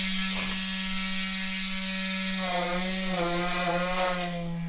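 High-frequency concrete poker vibrator running steadily in wet concrete: a constant high-pitched hum with a hiss over it, its tone shifting slightly about halfway through.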